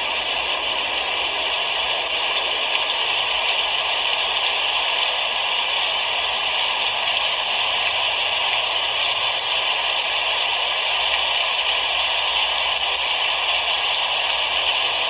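Steady rain falling: a dense, even hiss of many fine drops that holds the same level throughout.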